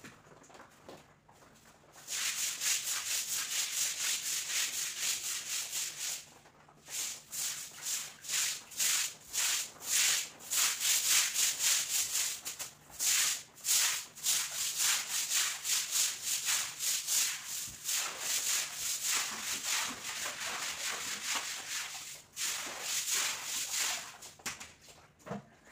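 A stiff stick broom scrubbing a wet cement floor: a steady scrub for a few seconds, then quick sweeping strokes about two a second, pushing the water along.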